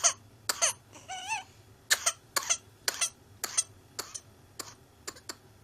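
Baby with whooping cough in a coughing fit: a rapid run of short, sharp coughs, about two a second, growing weaker toward the end. About a second in there is a brief high, squeaky, wavering sound. A paroxysmal cough of pertussis in an infant.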